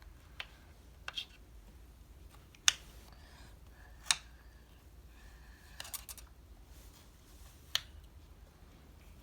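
Scissors snipping: about six short, sharp snips a second or two apart, cutting the corners off.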